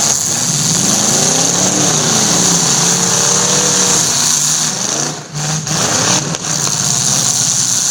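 Several big demolition-derby car engines revving up and down at once as the cars push and manoeuvre, their pitch rising and falling. The sound dips briefly about five seconds in.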